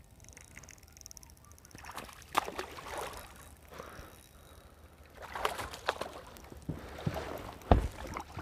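Water slapping and sloshing against a small boat's hull in irregular washes, busier in the second half. One heavy low thump comes near the end.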